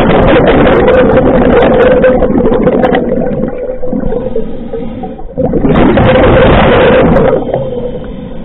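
Scuba diver breathing through a regulator underwater: two long rushes of exhaled bubbles, the second starting a little past halfway, with quieter inhales between. A steady hum runs underneath.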